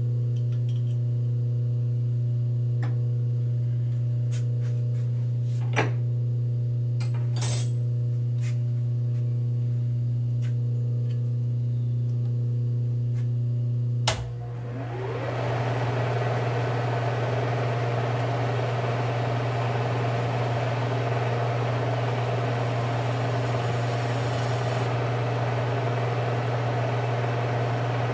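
A steady low hum with a few light metal clinks, then about halfway a click as the Bridgeport milling machine's spindle motor is switched on. It spins up with a rising whine and settles into a steady whirring run.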